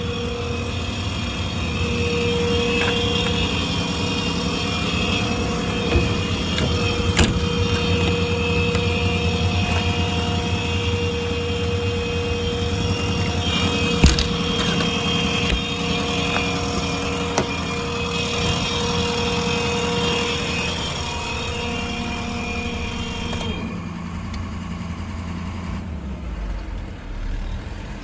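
Ford F550's 6.7-litre Power Stroke V8 diesel idling steadily. A higher steady whine runs over it and cuts off suddenly about 23 seconds in. A few sharp clicks or knocks sound along the way, the loudest about halfway through.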